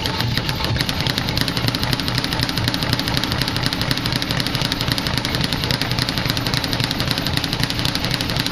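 Speed bag being punched nonstop, a fast, even rattle of rapid knocks with no break.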